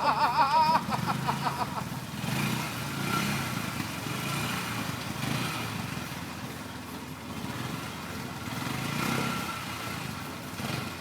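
Polaris Ranger 500 utility vehicle's single-cylinder four-stroke engine running under load as it climbs, swelling and easing off a few times. A raised voice is heard in the first second.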